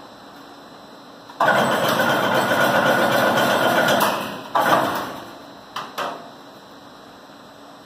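Chain link fence making machine running for about two and a half seconds, then a sudden loud sound that dies away over about a second, followed by two sharp clicks.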